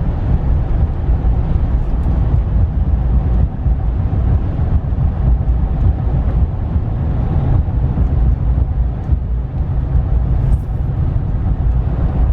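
Steady road and engine noise of a 2015 Ram pickup with the 5.7-litre Hemi V8, heard from inside the cab while driving: a constant low rumble with no changes in pace.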